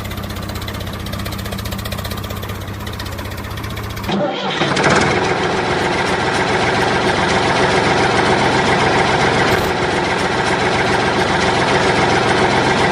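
Steady engine running; about four seconds in it cuts abruptly to a different, louder engine sound that keeps running steadily.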